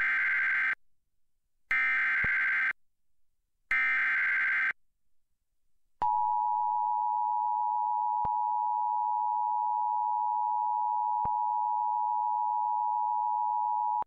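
Emergency Alert System warning tones: three roughly one-second bursts of SAME digital header data, about two seconds apart, then after a short gap the steady two-tone EAS attention signal for about eight seconds. The header bursts carry the coded alert, here a National Weather Service severe thunderstorm warning, and the attention signal announces the spoken warning that follows.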